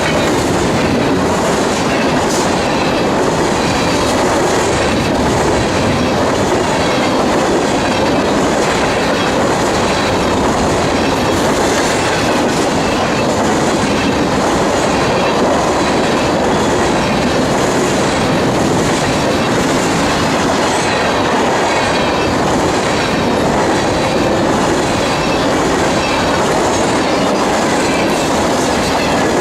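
Freight train of grain hopper cars rolling past, the wheels clattering in a steady rhythm over the rail joints.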